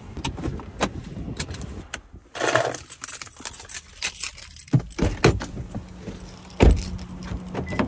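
Handling noise of a person getting out of a parked car: rustling and a run of sharp clicks, with a heavy thump about six and a half seconds in.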